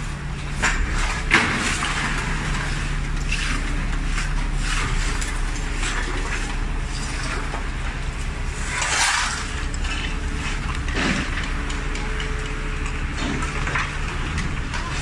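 A large truck's diesel engine running at idle, a steady low drone, with scattered knocks and clatter of debris being cleared.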